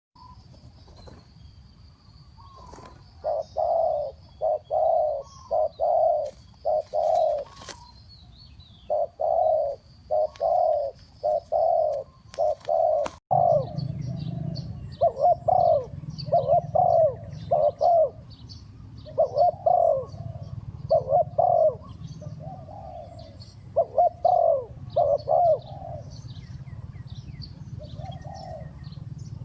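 Spotted dove cooing fast: repeated groups of four to six soft, low coos. About halfway in the background changes abruptly, and faint high chirps of small birds and a low steady hum come in behind the coos.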